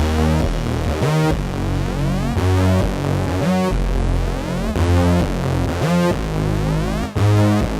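Electronic intro music: synthesizer with heavy bass and sweeping tones, repeating in a pattern about every second and a quarter.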